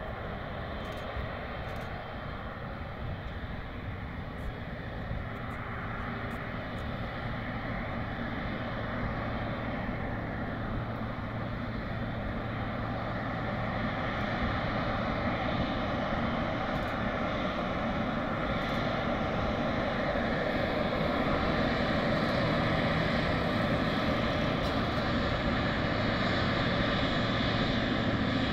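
Boeing 777F freighter's twin GE90 turbofan engines running at taxi power as the aircraft taxis closer: a steady jet engine noise with a few held tones, slowly growing louder.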